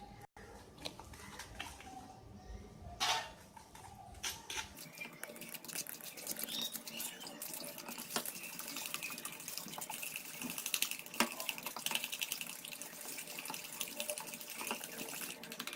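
Oil and powdered sugar being mixed in a bowl: a dense, steady wet clicking and scraping from about five seconds in, after a few light knocks in the first seconds.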